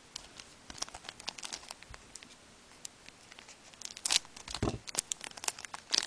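Foil wrapper of a 2011-12 Score hockey card pack crinkling in the hands and being torn open, a run of short, sharp crackles that grows denser and louder over the last two seconds.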